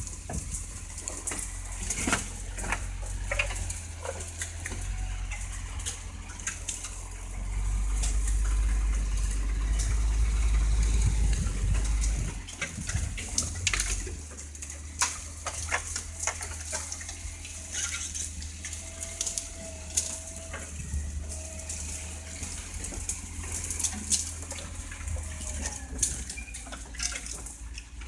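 Land Rover's engine running low and slow as it forces its way through thick bush, with branches and scrub cracking, snapping and scraping against the vehicle. The engine rumble grows louder for a few seconds about a third of the way in.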